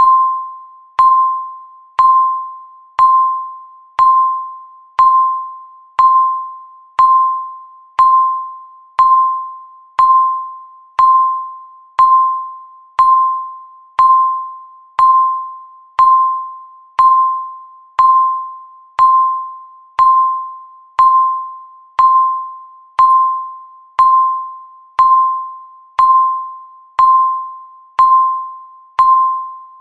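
Countdown timer beeping once a second: a single clear, high tone that strikes sharply and fades before the next, evenly repeated.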